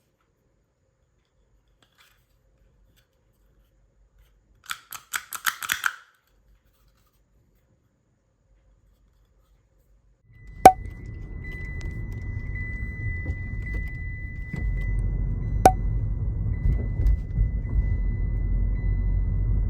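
About five seconds in, a second-long burst of quick metallic clicking and rattling. After a pause, a low steady rumble starts and keeps going, with a faint steady high tone and a single sharp click about every five seconds.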